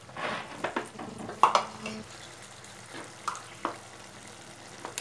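Flat metal spatula stirring and scraping diced bottle gourd and potato in a kadai over a low sizzle. Several quick scrapes come in the first two seconds, the loudest about a second and a half in, then a couple of sparser knocks.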